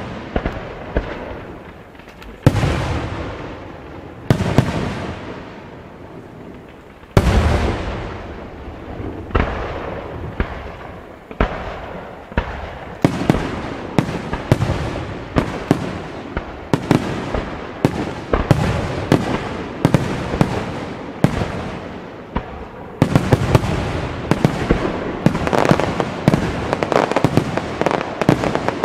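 Aerial firework shells bursting: single loud booms a few seconds apart, each trailing off in a long echo, then coming faster and faster until a dense, rapid barrage of bangs over the last six seconds.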